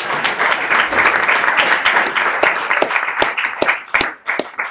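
Audience applauding, thinning out to a few last scattered claps near the end.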